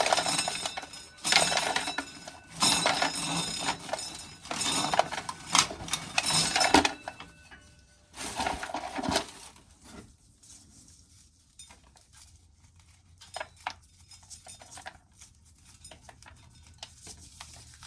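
Dry corn kernels rattling and clinking into a container as ears of corn are shelled. Steady bursts of clatter for the first several seconds and once more a little later, then only a few faint scattered ticks.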